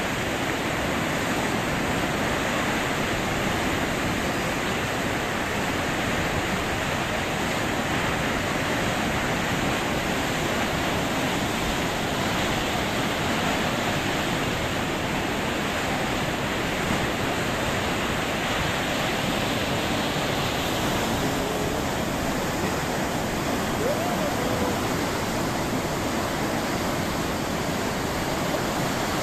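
Flash-flood water of a hill torrent swollen by heavy rain, rushing and churning through its channel in a steady, unbroken roar of water.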